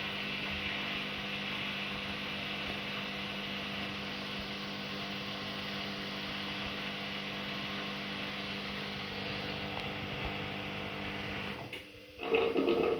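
Haier HW100-1411N washing machine running, a steady motor hum with a few held tones. About twelve seconds in the hum drops away and a louder, short burst follows.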